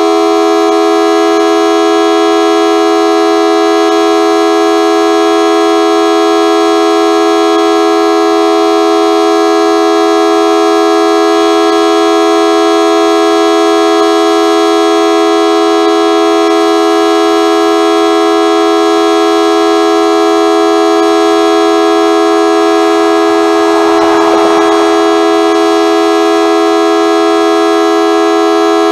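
Model 2T outdoor warning siren sounding a steady tone that holds one pitch without rising or falling, low-pitched, which the uploader finds does not sound good. A brief rush of noise passes over it near the end.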